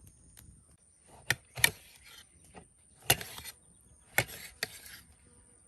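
Five sharp knocks over about three and a half seconds, most followed by a brief scraping rustle, with a thin steady high tone behind them.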